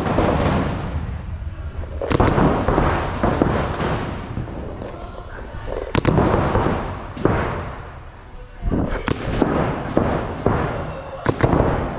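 Paintball markers firing reball rounds: irregular sharp pops, some in quick runs of two or three, over a steady background of noise.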